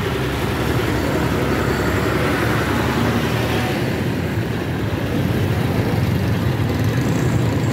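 Steady roadside traffic noise, with a motor-vehicle engine running close by.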